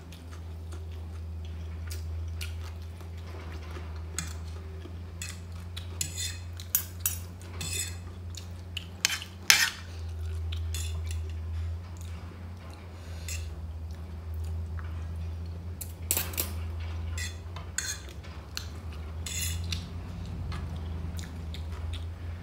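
Metal fork and spoon clinking and scraping against a plate at irregular moments while noodles are twirled and eaten, over a steady low hum.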